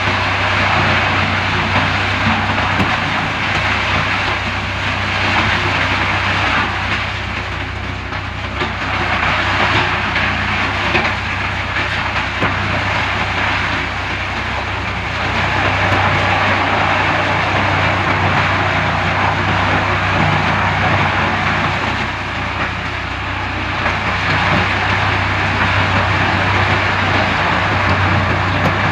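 Large industrial wood chipper running and chipping wood: a steady low hum under a loud, grinding noise that swells and eases every several seconds.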